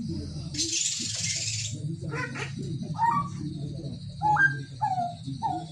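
Butcherbird (Jagal Papua) singing: a harsh hissing note about half a second in, then a series of short, clear whistled notes, some sliding in pitch, in the second half. A steady low hum runs underneath.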